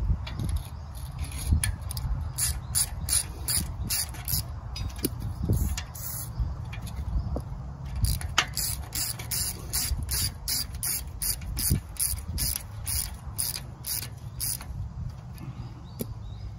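Hand socket ratchet clicking in two runs of quick, even strokes, about three a second with a short pause between, as nuts are worked on the guard bolts of a sickle bar mower.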